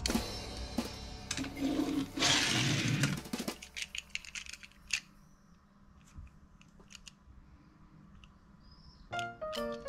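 Small diecast toy cars being handled by hand: a short rustle and scraping, then scattered light clicks and taps as a metal model car is picked up and turned in the fingers. Background music fades out at the start and comes back near the end.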